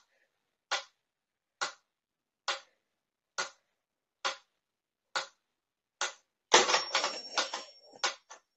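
A steady, regular ticking: one sharp click a little under once a second. About six and a half seconds in it gives way to a short stretch of denser clattering and rustling.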